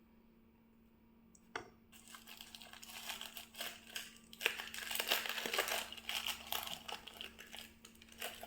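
Crinkling and scraping as baking powder is spooned out and added to a bowl of flour, starting with a sharp click about a second and a half in and growing busier toward the middle.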